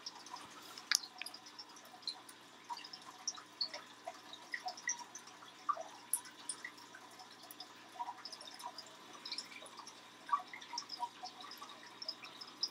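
Faint, irregular small clicks and ticks of fingers working sticky liquid latex and bits of cotton pad on the skin, with scattered handling of items on the table.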